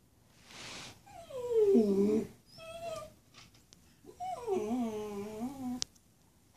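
Baby's vocalizations: a breathy huff, then two drawn-out coos with wavering, sliding pitch, the second ending in a sharp click.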